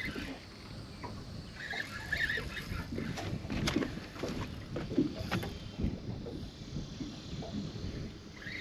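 Wind on the microphone over a small boat, with scattered light knocks and handling sounds.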